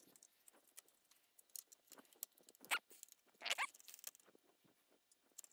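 Faint clicks, taps and scrapes of small hard-plastic RC tank turret parts and wiring being handled and fitted together, with a few slightly louder scrapes around the middle.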